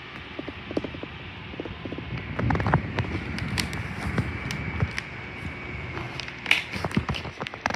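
Mondial Máxi Power 30 electric fan running with a steady rush of air and a faint high whine, while irregular clicks and knocks, as of handling, come and go over it, busiest about a third of the way in and again near the end.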